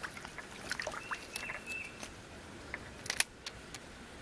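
A bird calls once about a second in, a thin high note with a few quick dips lasting under a second, over faint creekside ambience. A few sharp clicks, the loudest about three seconds in, are the handling of the camera or fishing gear.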